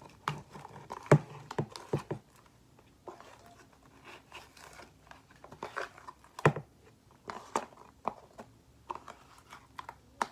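Slime being scraped and pulled out of its container by hand: scattered clicks, knocks and crinkling handling noises, with sharp knocks about a second in and again about six and a half seconds in.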